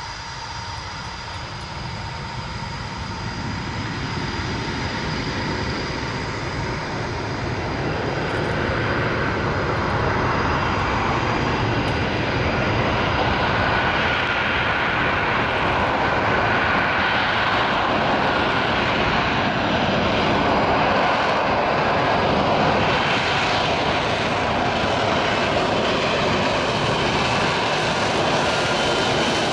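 Lockheed Martin F-35B Lightning II's single F135 turbofan jet engine on its arrival approach, growing louder over the first several seconds as it closes in, then a steady loud roar with a faint whine running through it.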